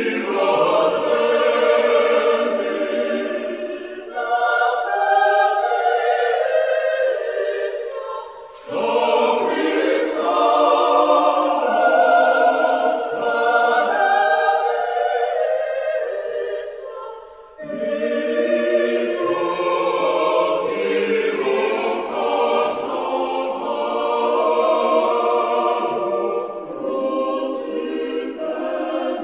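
A choir singing slow, sustained phrases, with short breaths between phrases about four, eight and a half and seventeen and a half seconds in.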